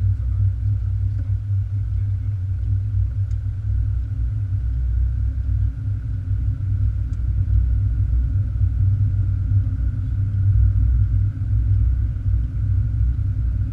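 Steady low rumble of a car's engine and tyres as heard inside the cabin while driving at low speed, with a faint steady higher hum over it.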